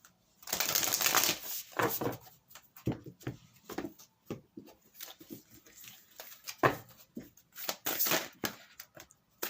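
A Starseed Oracle card deck being shuffled by hand: papery swishes and quick flicks and taps of cards, with a longer swish near the start and another about eight seconds in.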